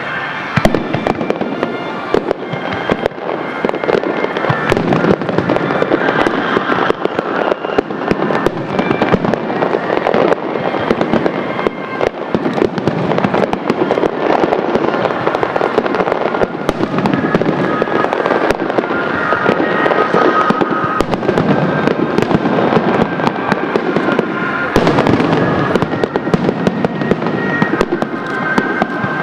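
Fireworks display: a continuous dense crackling and popping of many shells and stars bursting, with no break.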